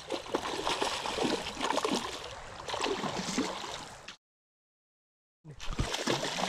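Creek water splashing and gurgling, with a stretch of dead silence lasting about a second, about four seconds in.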